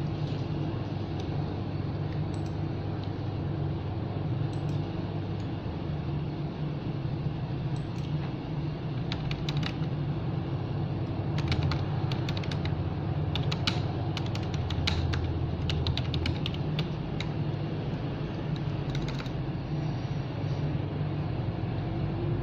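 Small sharp clicks and taps of hands handling small objects, coming in quick clusters from about nine to nineteen seconds in, over a steady low hum.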